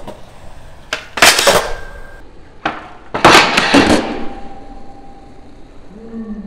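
Skateboard tricks on a steel flat-bar rail, done twice: a sharp pop of the board, then about half a second of the trucks grinding loudly along the metal rail and the landing, with wheels rolling on concrete in between.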